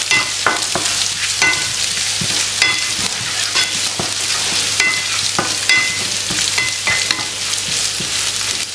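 Chopped onion, garlic and green chilli sizzling in oil in a non-stick frying pan while being stirred, with many short scrapes and taps of a spatula against the pan, some ringing briefly.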